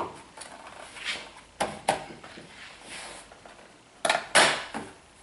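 Rigid plastic post cover being handled and pushed around a tractor cab's corner post: a few light clicks and knocks of plastic, then two loud, short scrapes about four seconds in.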